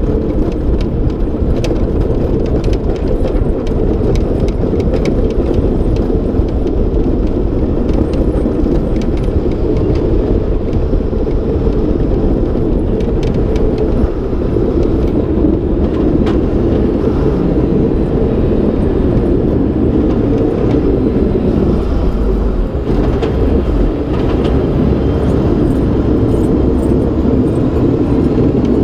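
Mack Granite plow truck driving along a snow-covered road, its plow and wing blade pushing snow aside: a loud, steady, low rushing rumble of engine, tyres, wind and spraying snow, heard from outside the cab, with scattered light clicks.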